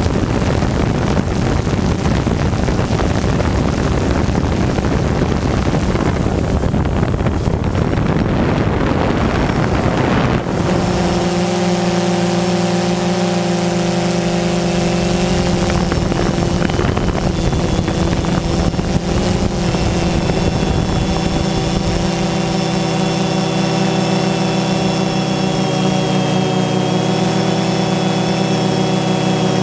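Quadcopter drone's motors and propellers, heard from its onboard camera. A rushing wind noise for about the first ten seconds, then, suddenly, a steady hum of several held tones.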